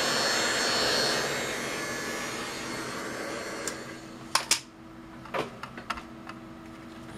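Hot-air heat gun blowing steadily over a circuit board to desolder its chips, dying away over the first three to four seconds. A few short sharp clicks and taps follow.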